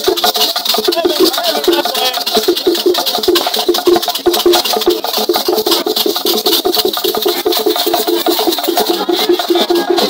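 A wooden log drum beaten with sticks, playing short notes of one pitch in a steady repeated pattern about three a second, over the dense shaking of rattles.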